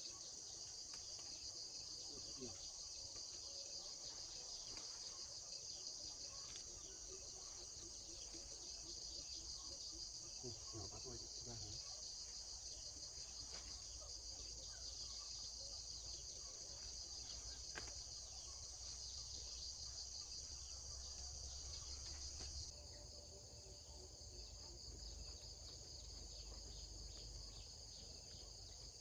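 Steady, high-pitched chorus of chirring insects in the fields. It drops in level about three-quarters of the way through, with a few faint rustles underneath.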